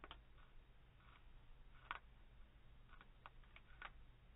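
Faint, irregular crisp clicks of a Cecropia moth caterpillar's mandibles biting through a leaf, heard slowed down.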